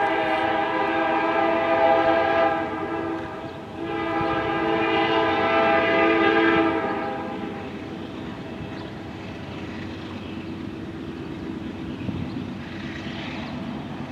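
Air horn of a GE C44-9W diesel locomotive blowing two long blasts as it approaches a grade crossing, part of the crossing warning signal. After the second blast a steadier, quieter rumble of the approaching train carries on.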